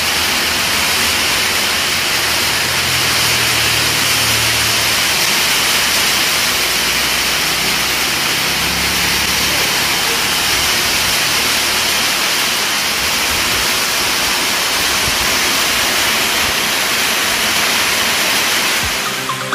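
Very heavy rain pouring down in a windstorm: a steady, loud hiss that does not let up.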